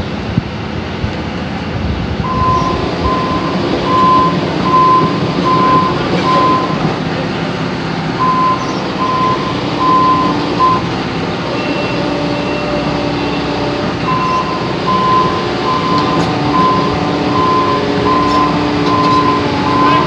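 SANY tracked hydraulic excavator's diesel engine running steadily while its travel alarm beeps about once a second, in three stretches, as the machine tracks along.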